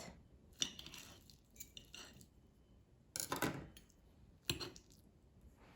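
Cutlery clinking and scraping against a plate while a fried egg is cut and eaten: a few light clicks, a louder clatter a little past halfway, and a sharp click about four and a half seconds in.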